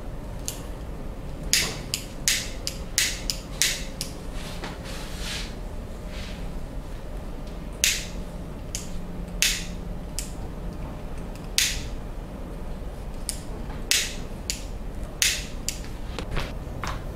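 A barber's hands working over a client's skin and hair during a massage: a string of short, sharp, hissy swishes and taps at irregular times, some coming in quick runs of three or four, over a low steady background hum.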